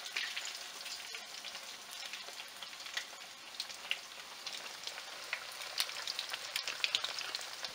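Cornmeal-breaded catfish fillets frying in hot oil in a skillet: a steady sizzle with scattered sharp pops.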